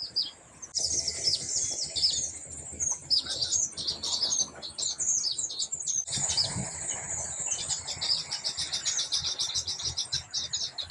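Baya weavers chattering: a dense stream of high chirps that starts abruptly about a second in, turning after about seven seconds into a fast, even chatter of about ten notes a second.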